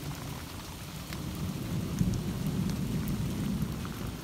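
Steady rain falling, with a few sharp drop ticks close by and a low rumble that swells slightly partway through.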